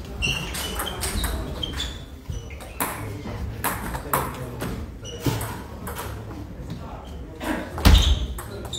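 Table tennis rally: the plastic ball clicking sharply off the bats and bouncing on the table, a few clicks a second, with fainter ball clicks from other tables. A heavy low thump comes near the end.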